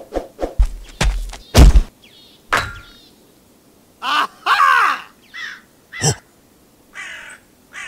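Cartoon sound effects: a quick run of knocks and thuds in the first two seconds, the loudest a heavy thump, then a few harsh squawking calls from about four seconds in.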